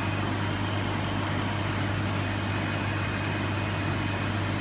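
Aquarium pumps and filtration running: a steady low electrical hum under an even hiss.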